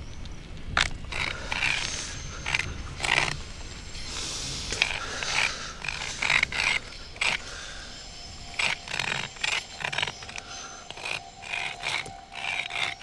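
Stones and grit scraping and clattering in rubble, with a boy's strained gasps and groans between them. A steady held musical tone comes in about eight seconds in.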